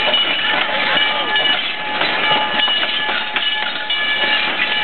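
Open passenger cars of a narrow-gauge train rolling past, their wheels clicking over the rail joints, with steady high-pitched squeals from the running gear.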